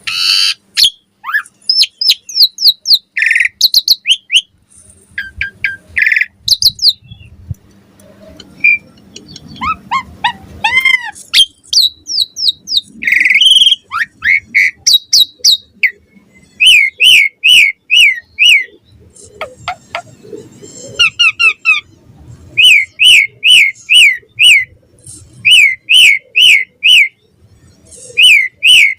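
Asian pied starling singing: a quick, varied string of whistles and chattering notes, then repeated runs of four or five short, downward-sweeping whistled notes.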